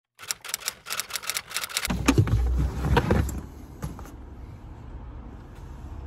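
Around a car: rapid clicking and rattling for about two seconds, then a few heavy knocks over a low rumble, settling into a steady low hum.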